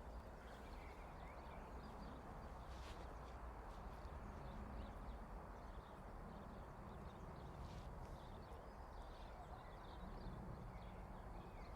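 Faint outdoor park ambience: a steady low rumble with faint bird chirps and a couple of soft clicks.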